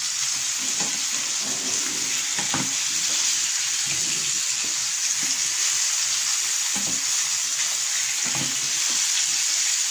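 Marinated boneless chicken pieces sizzling steadily in hot oil in a nonstick frying pan, with occasional short scrapes and knocks as the pieces are stirred and turned.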